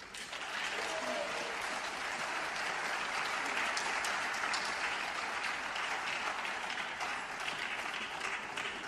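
Audience applauding, starting suddenly and holding steady.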